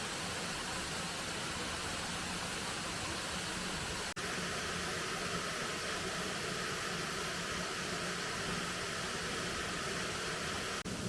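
Steady rushing roar of a waterfall, an even hiss of falling water with no distinct events, broken by two brief dropouts about four seconds in and near the end.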